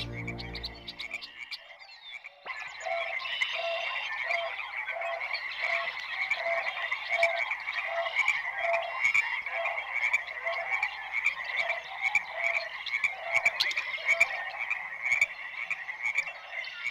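Music fades out in the first second. About two and a half seconds in, a dense chorus of frogs starts up: many pulsed calls repeating a few times a second, with higher chirps over them now and then.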